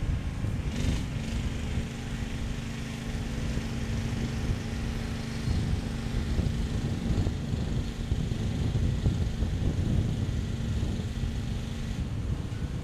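Off-road 4x4's engine running at a steady idle, a constant hum over low rumbling noise; the hum stops near the end.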